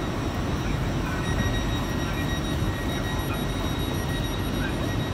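Steady low rumble of an LNER train, with a faint steady high whine above it.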